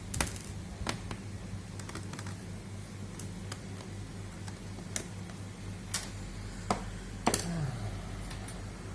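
Irregular sharp clicks and taps of a laptop being handled, over a steady low hum.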